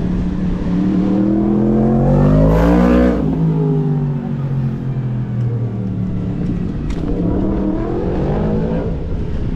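A motor vehicle passes close by. Its engine pitch rises to the loudest point about three seconds in, then drops as it goes past. A second engine rises and fades near the end.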